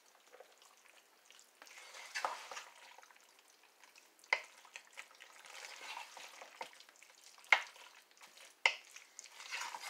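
A wooden spoon stirring chopped chicken, vegetables and cream soup in a crockpot: irregular swishing and scraping, with three sharp knocks of the spoon against the crock, at about four, seven and a half and eight and a half seconds in.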